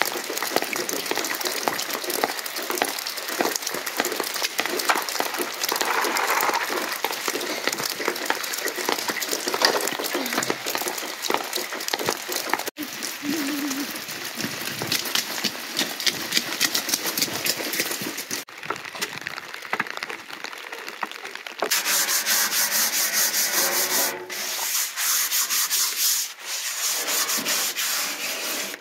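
Stiff brush scrubbing the dirty inside of an old enamel bathtub, wet, with quick back-and-forth rubbing strokes in a fast, even rhythm.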